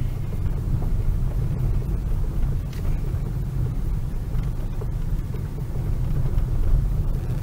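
Steady low rumble of a car driving slowly, heard from inside the cabin: engine and tyres rolling over a road of concrete slabs.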